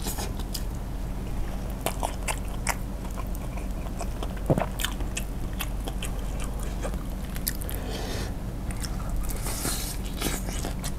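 Biting and chewing of crispy fried chicken coated in wet, spicy sauce: a run of short crunches and wet mouth clicks, with one louder crunch about halfway through.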